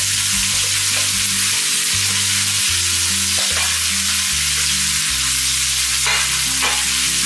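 Chopped vegetables sizzling in hot oil in a kadai as tomatoes are added and stirred in with a wooden spatula: a steady frying hiss with a few short scrapes, the last two near the end.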